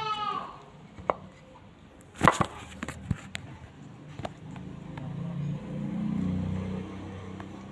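Handling of a parcel during unboxing: a few sharp clicks and knocks, the loudest about two seconds in. A low rumble swells and fades near the end.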